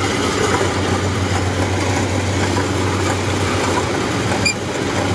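Kubota rice combine harvester running steadily as it cuts and threshes, its diesel engine giving a constant low drone under the rattle of the machinery. A short, sharp click sounds near the end.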